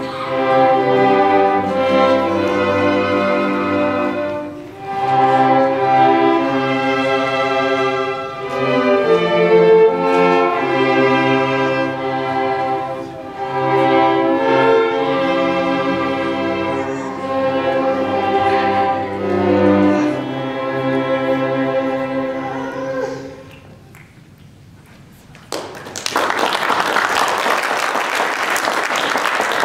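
String ensemble of violins and cellos playing the closing phrases of a hymn arrangement, ending on a long-held final chord that fades out a little over 23 seconds in. After about two seconds of quiet, the audience breaks into applause.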